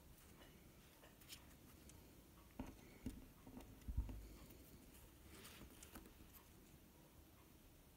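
Near silence with a few faint handling clicks and light taps, the loudest a soft thump about four seconds in.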